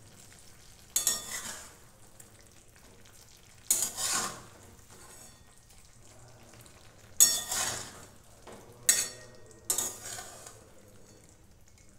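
A flat metal spatula scraping against a metal kadai as it stirs a moist curry of potato, eggplant and tomato, in five separate strokes spread out with quiet pauses between them.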